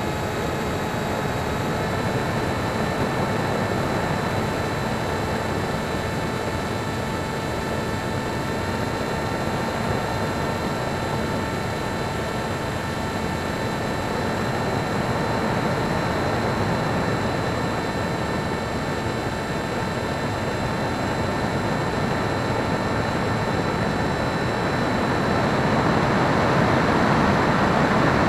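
Electric motor and propeller of a HobbyKing Breeze RC glider, recorded by the camera on board in flight: a steady whine of several thin tones over the rush of air, getting louder near the end.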